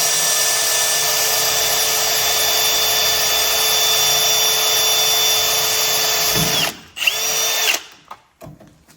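Electric drill running steadily at full speed while drilling out stuck parts. About six and a half seconds in, it winds down and stops, then gives one short second burst of about a second.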